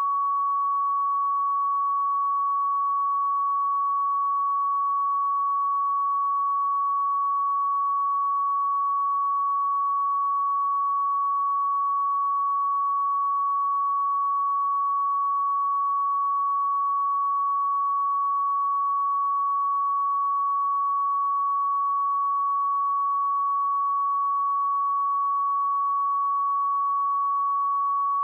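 A pure 1123 Hz sine-wave test tone, held steady at one pitch and level without a break.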